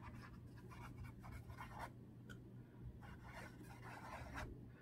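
A wet paintbrush scrubbing back and forth over a canvas, wetting it with plain water: faint, quick scratchy strokes.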